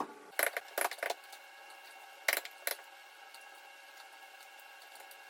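Several sharp metallic clinks and knocks from hand tools and steel parts being handled: a quick cluster in the first second, then two more a little over two seconds in.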